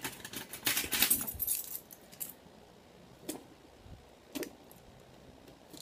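Packaging of a mail-order beauty box being handled and opened by hand: a short run of rustling and clicking, then two separate sharp clicks.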